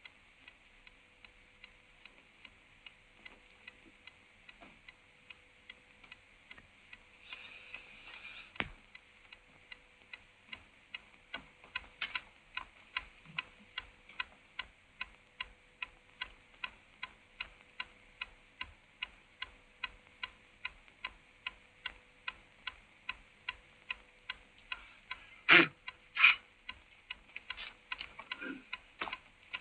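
Clock ticking steadily, about two ticks a second, getting louder after about ten seconds. Near the end two loud knocks come close together.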